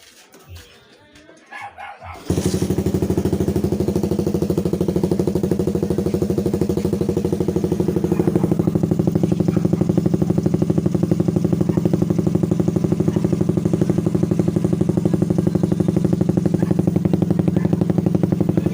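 Motorcycle engine idling through a 51 mm Creed GP Warrior open pipe, a free-flowing aftermarket exhaust: a steady, loud, evenly pulsing exhaust note that comes in suddenly about two seconds in.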